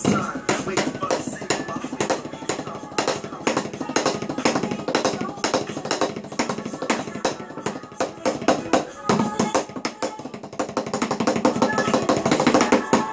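Wooden drumsticks playing rudiments on a drum practice pad: a fast, continuous run of sharp stick strokes, many to the second, easing off a little about eight seconds in and growing louder near the end.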